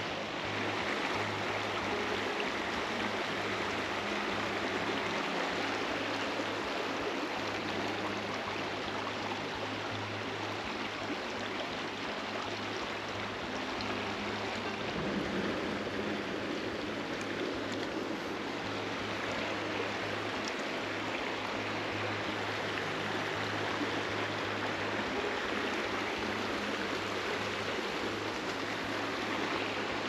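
A creek running full, water rushing steadily over small drops.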